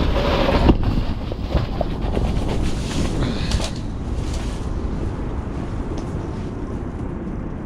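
Strong wind buffeting the microphone: a heavy, uneven low noise that swells with gusts, loudest in the first second.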